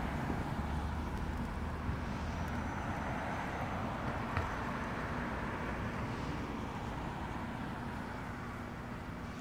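An electric 2016 Tesla Model S passes by, heard only as tyre and road noise swelling and fading, with no engine sound, over a steady low street-traffic hum. A single click sounds near the middle.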